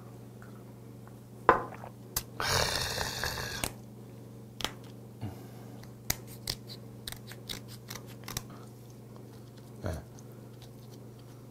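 Kitchen scissors snipping through the shell of a cooked red snow crab leg: a string of short sharp clicks and cracks. Before the snipping there is a single knock and a brief rushing noise lasting about a second.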